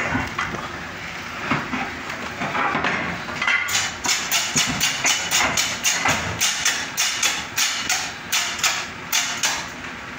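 Even, rapid knocking, about three sharp knocks a second starting a few seconds in, from work at a hand-wheel screw press used for molding rubber rings.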